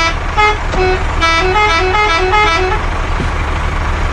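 A musical vehicle horn playing a quick tune of short notes that stops about three seconds in, over a steady low engine rumble.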